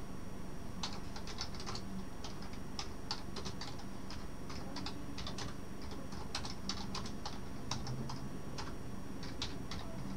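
Typing on a computer keyboard: irregular key clicks, several a second, in short runs with brief pauses.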